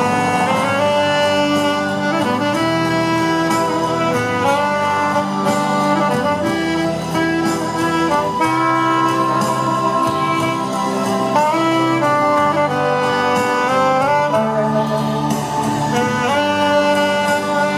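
Instrumental music: a melody line moving from note to note over held low notes, with no singing.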